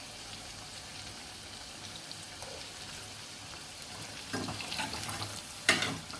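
Sago fritters deep-frying in hot oil with a steady sizzle. From about four seconds in come a few knocks of a utensil in the pan, the loudest just before the end.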